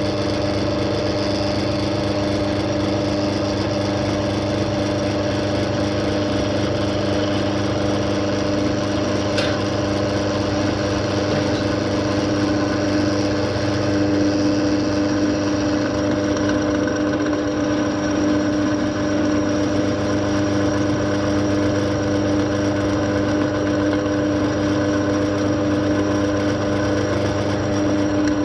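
A machine motor running at a constant speed, a steady hum with no change in pitch, with a single light click about nine and a half seconds in.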